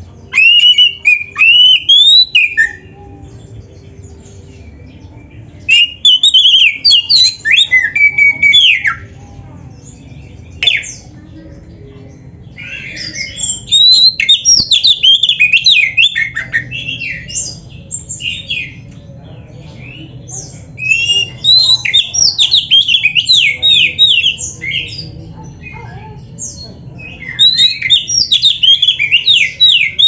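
Caged oriental magpie-robin (kacer) singing loudly in bursts of a few seconds, separated by short pauses. The song is a rapid run of high whistled notes that sweep up and down in pitch: the full, energetic 'gacor isian' song kept for training other birds.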